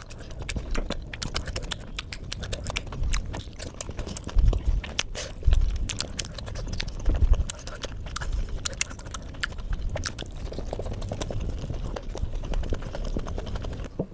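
Close-miked eating of steamed momos: wet mouth clicks and smacks of chewing, irregular and rapid, with a few heavier low thumps.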